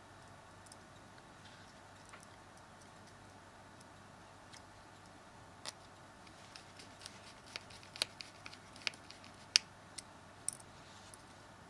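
Scattered small, sharp clicks and ticks of a small Phillips screwdriver and tiny screws against a Samsung Galaxy S3's plastic frame as the screws are refitted. There are only a few at first, they grow busier in the second half, and there is one louder click about two-thirds of the way through.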